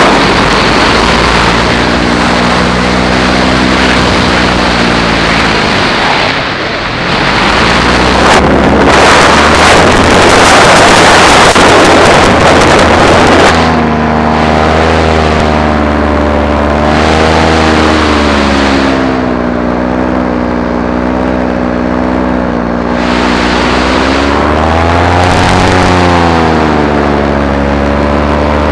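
Paramotor engine and propeller running in flight, its pitch rising and falling, under heavy wind noise on the microphone that is strongest about ten seconds in.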